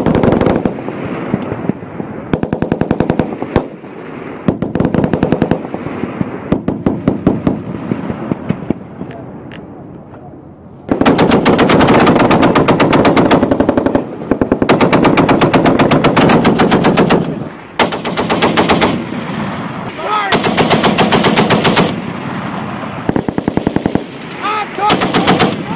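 Browning M2 .50-calibre heavy machine guns firing belt-fed bursts of automatic fire. Quieter strings of shots run through the first ten seconds, then several long, loud bursts follow from about eleven seconds in, with a short burst near the end.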